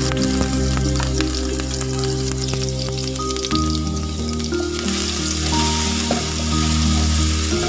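Minced garlic sizzling and crackling in hot oil in a nonstick pan. The sizzle grows louder about five seconds in as a spatula stirs it. Background music with long held notes plays underneath.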